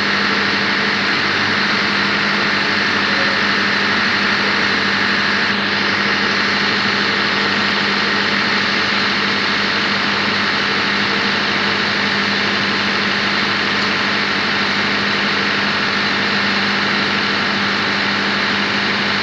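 Steady drone of a diesel engine running in a tug boat's engine room: a loud, unchanging hum with a strong low tone.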